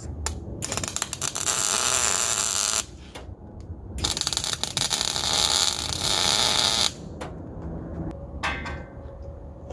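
Gas-shielded MIG welder striking an arc on steel twice, each a steady crackling sizzle lasting about two to three seconds with a short pause between.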